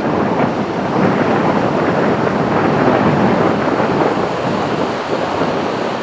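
Ocean surf breaking and washing ashore, a steady rushing noise that swells and eases slightly, with wind on the microphone.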